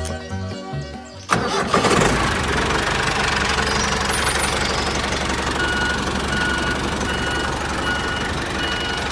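Background music, then a little over a second in a small motor on a DIY mini tractor starts abruptly and runs steadily with a fast, even chatter.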